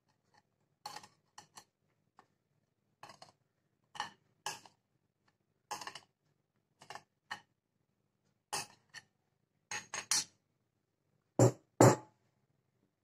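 Steel spoon clinking and scraping against a glass bowl and a metal mesh strainer as flour is spooned into the strainer: a run of separate light clinks and taps, with two louder knocks near the end.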